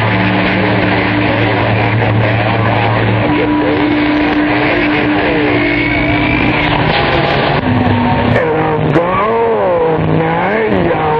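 CB radio receiver audio: steady static hiss with the hum and whine of open carriers and heterodyne tones. From about 8 seconds in, a warbling sound rises and falls about twice a second.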